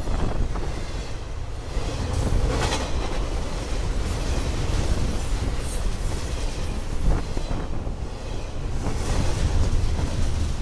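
Norfolk Southern freight train rolling past: a steady heavy rumble of cars and wheels on the rails, with a few sharp knocks from the wheels.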